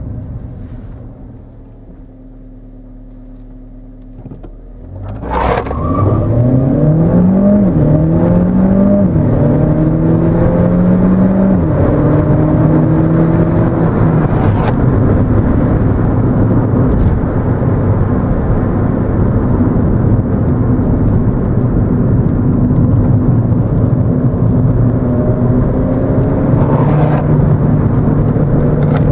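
Skoda Fabia vRS Estate's twincharged 1.4 TSI engine, heard from inside the cabin. It runs quietly for about five seconds, then a sharp knock sounds as it pulls away hard. The engine climbs in pitch through a few quick DSG upshifts, each marked by a drop in pitch, then settles into steady running under road and tyre noise.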